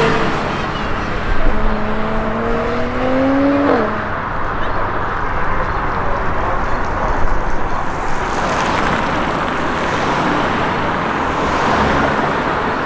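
Steady city street traffic with cars driving past. Over the first four seconds a rising whine climbs and then cuts off, and later two broad swells come and go as vehicles pass.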